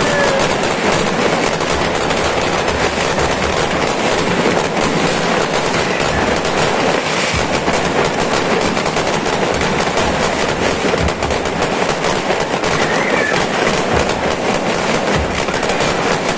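Fireworks barrage: dense, continuous crackling and popping of many shells and firecrackers going off at once, with a few deeper booms.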